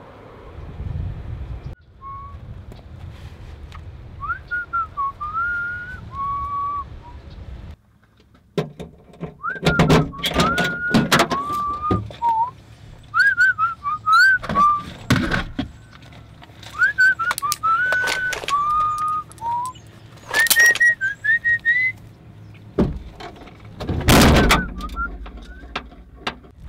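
A whistled tune, one wandering line of notes, broken by about a dozen loud, sharp thumps from about ten seconds in, the heaviest near the end.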